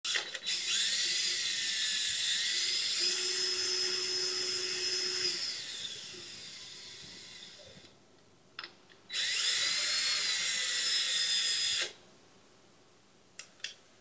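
A small motor whirring with a high whine that rises and falls, in two runs: the first fades away over several seconds, and the second starts about nine seconds in and cuts off sharply about three seconds later. A few short clicks fall between and after the runs.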